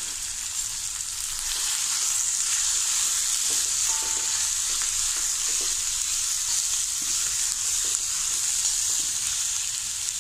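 Chopped onion, green chillies and ginger sizzling in hot oil in a kadai while a spoon stirs and scrapes through them. The sizzle grows louder about a second and a half in and then stays steady.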